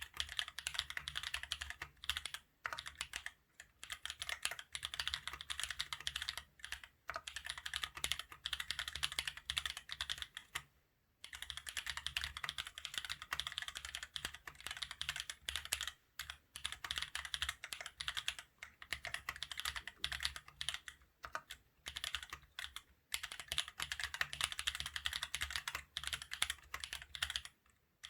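Mechanical keyboard with Holy Panda tactile switches on a carbon fiber plate in an aluminium case, typed on in fast, continuous runs of key clicks. There is a brief pause about eleven seconds in and shorter gaps here and there.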